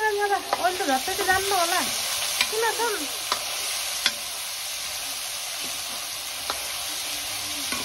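Potatoes sizzling as they fry in oil in a wok, stirred with a metal ladle that clicks and scrapes against the pan now and then. Over the first three seconds there are also a few short pitched sounds like a voice.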